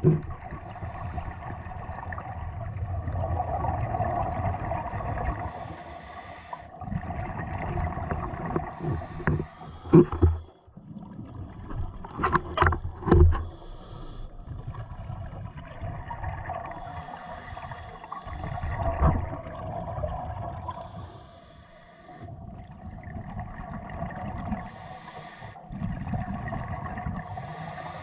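Scuba diver's regulator breathing heard underwater: a hiss on each breath every few seconds and a low bubbling rumble between them. A few sharp knocks about ten and thirteen seconds in.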